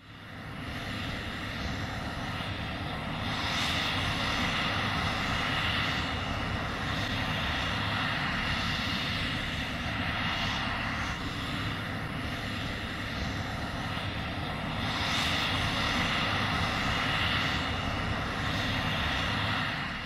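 Quadcopter drone's rotors whining steadily, a high whine over a low hum, swelling and easing every couple of seconds.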